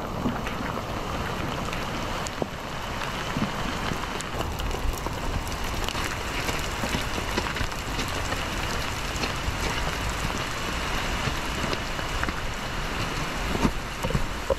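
Steady rain falling through the forest, with scattered drops ticking sharply close by.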